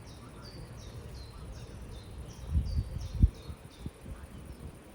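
Countryside ambience: a high chirp repeated about three times a second, which stops nearly four seconds in, over a low rumble, with a couple of dull low thumps around the middle, the second the loudest.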